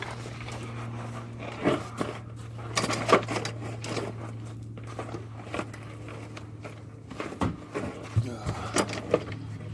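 Scattered knocks and clicks of tools and car parts being handled, over a steady low hum.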